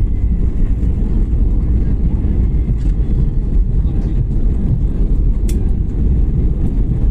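Steady low rumble inside an airliner cabin as the plane rolls along the runway after touchdown: engine and rolling noise heard through the fuselage.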